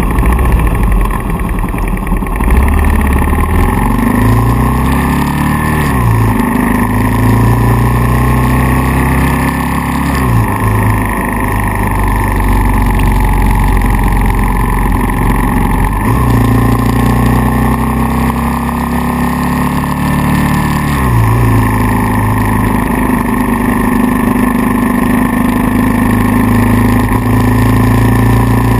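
Kawasaki KLR650's single-cylinder engine running, its revs climbing and then dropping sharply several times.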